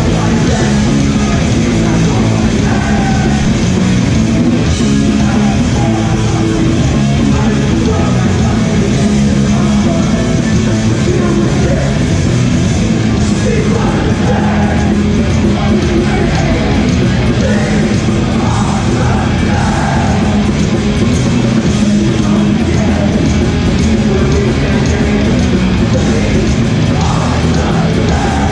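Hardcore punk band playing live at full volume: distorted guitars, bass and drums, with shouted vocals.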